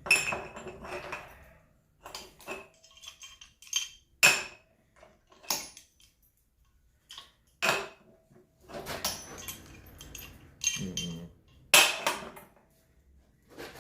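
Irregular metal clinks and clanks, with scraping and handling between, as a heating-element wrench is fitted and worked on an electric water heater's heating element.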